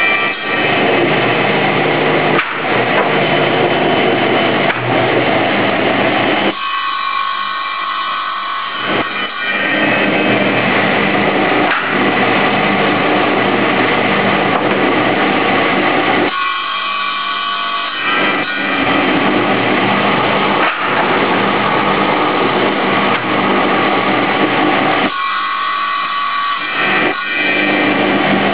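Table saw, a circular blade set in a wooden bench and driven by an electric motor below, ripping painted boards into strips. Long stretches of cutting are broken three times by a couple of seconds of the blade spinning free with a lighter, steady whine.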